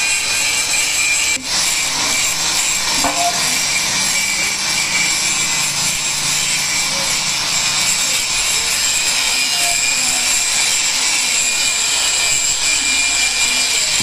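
Angle grinder running steadily under load, its disc grinding the inside of a truck rear axle housing's metal bore, a high whine over the grinding noise. The sound drops out briefly about a second and a half in.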